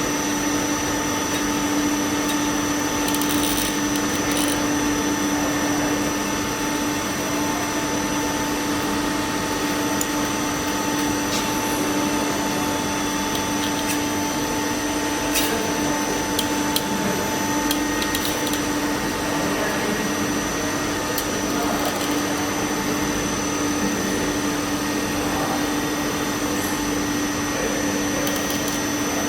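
Hollow-pipe making machine for jewellery running steadily: a constant motor hum with a steady high whine over it and a few faint clicks.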